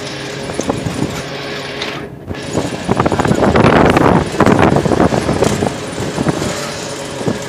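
Road traffic noise heard from a moving vehicle. About three seconds in it swells into a loud, rough rush for a couple of seconds, like a passing motor vehicle, then settles back.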